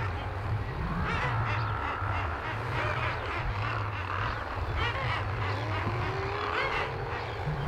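Seabird nesting colony calling: many short cries overlapping throughout, over a low rumble.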